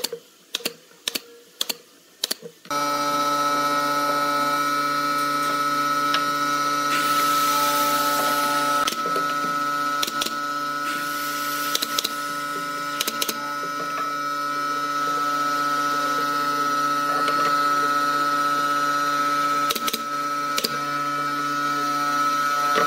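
Pneumatic brad nailer firing five quick shots. About two and a half seconds in, an air compressor starts up and runs with a steady hum, with a few more nailer shots over it.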